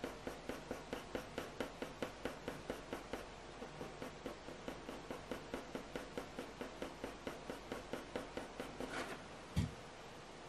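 Graphite pencil scratching on heavy hot-press watercolour paper in short, quick shading strokes, about four a second. The strokes stop near the end, followed by one soft thump.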